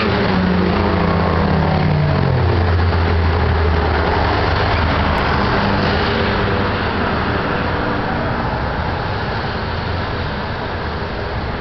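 Cars driving past on a multi-lane street. In the first two seconds or so one car's engine drone falls in pitch as it goes by, over steady tyre and traffic noise.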